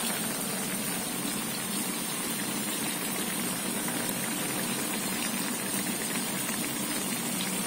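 Tilapia paksiw boiling hard in a pan of vinegar broth: a steady bubbling hiss with an even hum beneath it.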